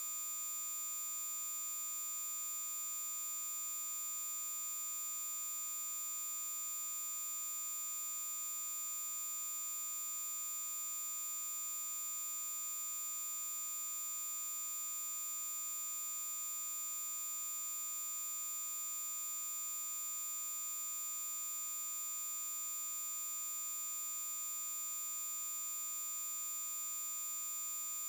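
Synthetic 7144 Hz sawtooth-wave test tone: one continuous, very high-pitched electronic tone held steady at a constant level.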